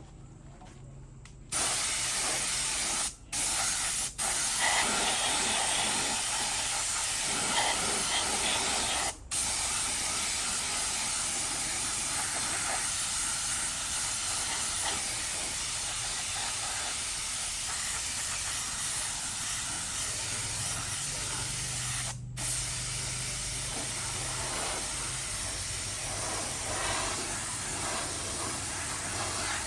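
Sprayer hissing in long continuous passes, starting about a second and a half in and cutting off briefly four times as the trigger is let go.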